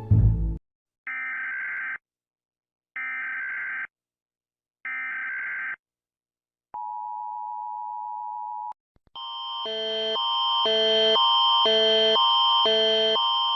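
Emergency Alert System SAME header: three one-second bursts of warbling digital data tones separated by short pauses, then a two-second dual-tone attention signal. About half a second later a different electronic alarm tone, alternating between pitches about twice a second, fades in and holds loud.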